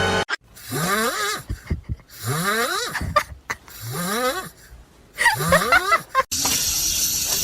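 Four drawn-out calls from an animal, each rising in pitch, about one every second and a half. Music comes back in near the end.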